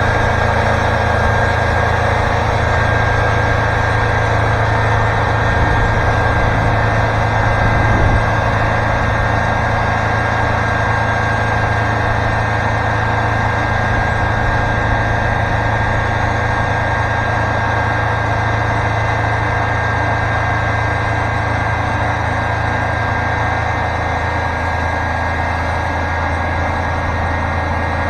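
Wood-Mizer LT40 Super Hydraulic sawmill running, its 40-horsepower turbo diesel engine humming steadily with no change in pitch.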